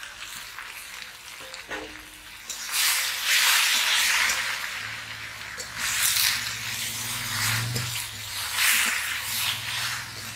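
Vegetables and spice paste sizzling in hot oil in a wok while a spatula stirs them, the sizzle swelling in surges every couple of seconds.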